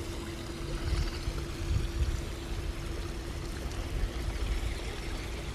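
Water running and trickling over the overflow edge of an infinity pool, with irregular low rumbles and a faint steady hum.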